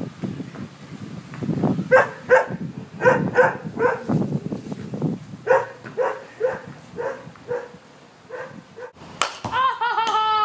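A dog barking repeatedly, short barks about two a second, over low rumbling noise. Near the end, after a sharp break, comes a quick run of falling, squeaky chirps.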